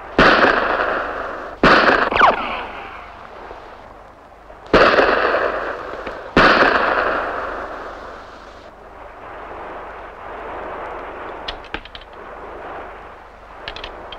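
Pistol shots in a gunfight among rocks: five sharp shots in the first seven seconds, each ringing out with a long echo, and a falling whine after the second. Near the end come a few faint clicks.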